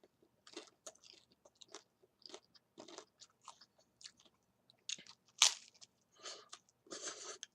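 Someone biting and chewing a crunchy taco: faint, irregular crunches, with a louder one about five and a half seconds in and a run of them near the end.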